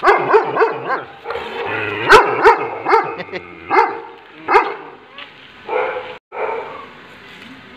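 Golden retriever yipping and whining in a quick run of short, high calls, the loudest about two seconds in, with a few more spaced out near the end.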